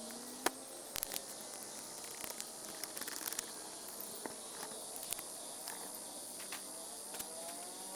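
Raindrops dripping and tapping in scattered sharp clicks on a tent, over a steady high-pitched drone of night ambience.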